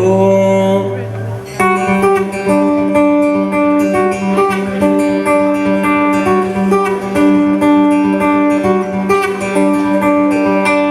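Live band playing the instrumental close of a folk-pop song after the last sung line: guitar picking a short melodic figure that repeats about every two and a half seconds over steady sustained notes.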